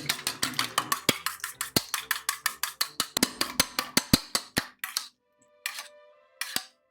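Rapid, even clicking of a utensil beating a mixture against a bowl, about six clicks a second, stopping about five seconds in, with a few more near the end. Background music plays underneath.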